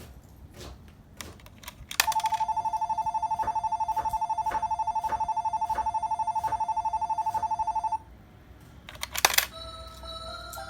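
Electronic ringing bell from a toy shinkansen coin bank's sound chip: a steady, rapid trill of two close high tones, starting about two seconds in after a few faint clicks and lasting about six seconds. Near the end comes a short clatter, then the first notes of an electronic chime melody.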